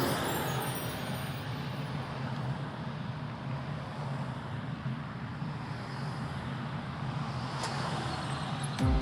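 Road traffic going by: a steady rush of tyres and engines from cars and trucks. Background music with deep bass thumps comes in right at the end.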